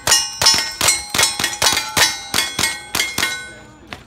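Rapid rifle fire from two shooters at steel plate targets, each shot followed by the ring of a hit plate, about four a second. The firing slows and the ringing dies away near the end.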